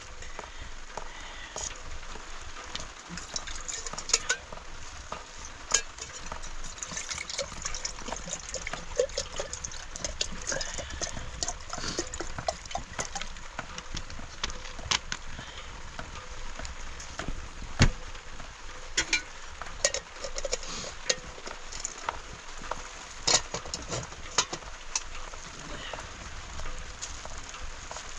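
Cooking sounds: a steady hiss with many scattered clicks and knocks of pots and utensils being handled, one louder knock about eighteen seconds in.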